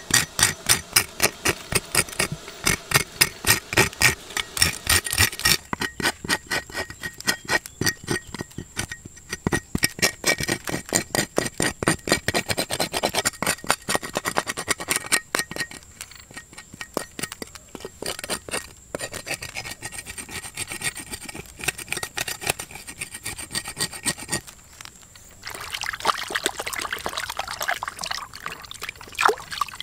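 A cleaver blade scraping the charred scaly hide of a small crocodile in a woven basket, in quick repeated strokes of several a second. Near the end this gives way to water sloshing as raw meat is washed.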